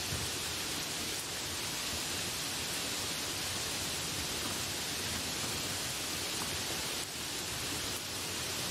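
Steady, even hiss of rain as a sleep soundscape, with no separate drops or other sounds standing out. It dips slightly for a moment about a second in and again near seven seconds.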